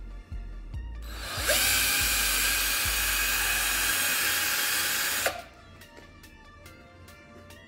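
Cordless drill spinning up about a second in, running steadily at full speed for about four seconds while drilling into a black plastic part, then winding down and stopping. Background music plays throughout.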